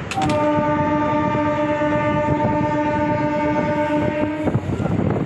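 Train horn blown in one steady note for about four seconds, then cut off, over the running noise of a moving train heard from on board.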